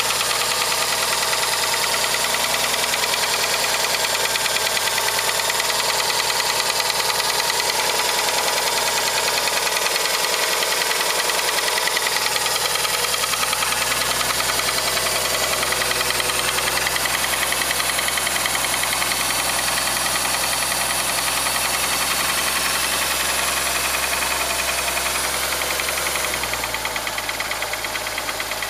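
Rover 75 2.0-litre engine idling with a rapid, steady knock from under the bonnet, the fault the owner is asking about. Near the end its deep hum steps down.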